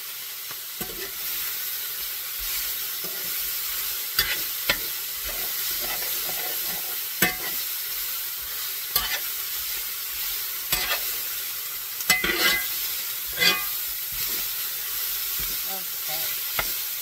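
Elk meat frying and sizzling steadily in a hot pan as it browns. A utensil scrapes and knocks against the pan every second or two, with a cluster of strokes about two-thirds of the way in.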